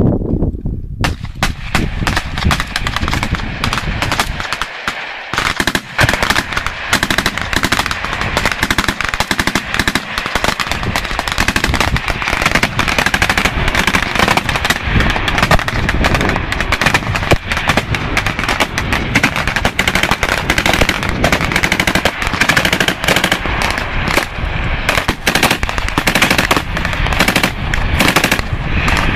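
Rapid, overlapping rifle fire from several shooters at once, a dense stream of shots that starts about a second in and does not let up.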